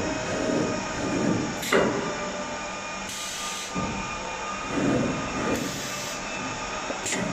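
CNC plate feeder machine running: steady mechanical noise, with a sharp click about a second and a half in and another near the end, and two short hisses in between.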